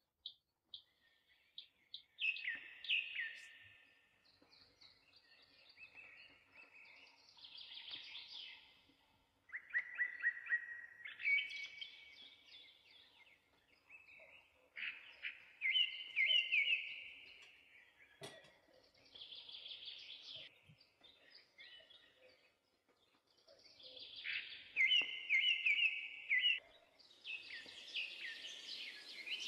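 Songbirds singing: short warbling, trilled phrases every few seconds. A hiss of background noise rises near the end.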